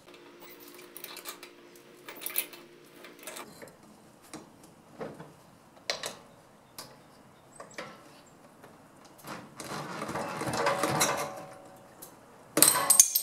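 Steel pry bar and screwdriver clicking, tapping and scraping against a wheel hub while a press-on retaining cap is pried off. A longer scrape comes about ten seconds in, and a sharp loud metallic clank near the end as the cap comes loose.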